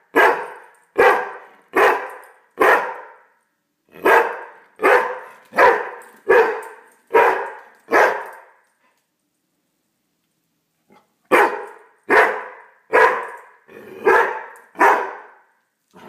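Bearded collie barking in short, sharp barks, about one a second in three runs with a pause of about three seconds in the second half: alarm barking at a coffee maker he is scared of.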